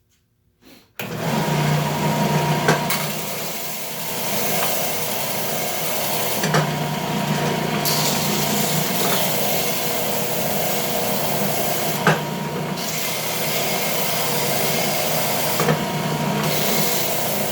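Ridgid belt/spindle combination sander running with a block of yellow pine pressed against the belt: a steady abrasive rasp over the motor's hum, with a few brief knocks as the wood is shifted. The sound starts abruptly about a second in.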